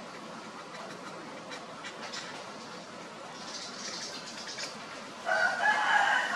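A rooster crowing, a loud long call that starts about five seconds in, with some faint high chirping a little before it.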